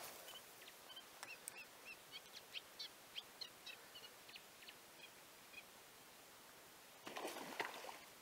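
Faint small-bird chirping in short, repeated high notes. About seven seconds in comes a brief rough splash lasting about a second, as an asp (boleń) strikes at the river surface.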